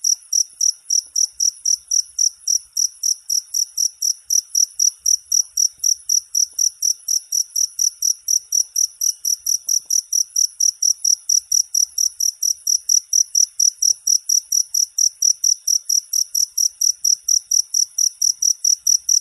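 A cricket chirping steadily: a high, even chirp repeated about four to five times a second without a break.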